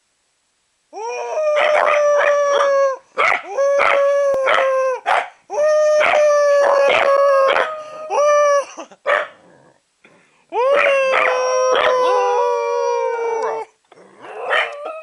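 Two Pembroke Welsh corgis howling together in long, steady, held notes, with short sharp yips cutting through. After a brief pause in the middle comes one long howl that slides slightly down in pitch, then a few shorter yelps near the end.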